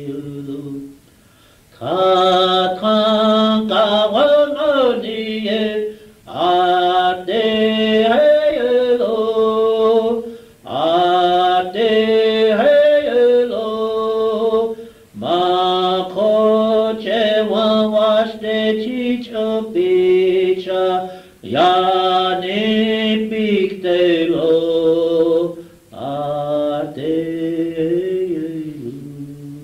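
Lakota chant sung without accompaniment in repeated phrases a few seconds long, with short breaks between them, recorded on a consumer portable cassette recorder.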